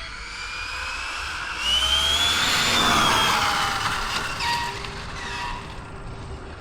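ARRMA Infraction 6S BLX RC truck's brushless motor whining as the truck speeds up. The whine rises in pitch and loudness to a peak about halfway through, then drops as it slows, over a rushing noise.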